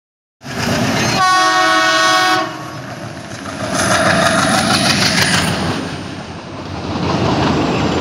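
WDM3A ALCO diesel locomotive's multi-tone horn blowing once for about two seconds. It is followed by the engine's heavy rumble and wheels clicking over the rail joints as the locomotive and coaches pass close below.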